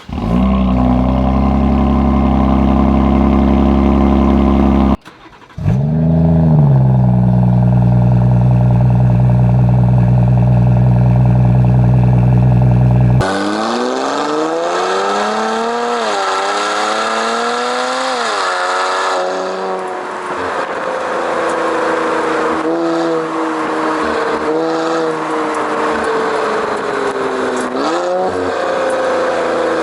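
Turbocharged six-cylinder sports car with an aftermarket exhaust starting up twice, each time flaring briefly and settling into a steady idle. About 13 seconds in the sound cuts to the car accelerating hard, its pitch climbing and dropping through several gear changes.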